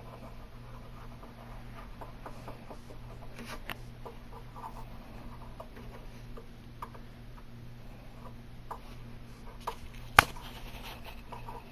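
Light scratching and rubbing of hand-finishing work on a peel-and-stick edge band, with scattered small ticks and one sharp click about ten seconds in, over a steady low hum.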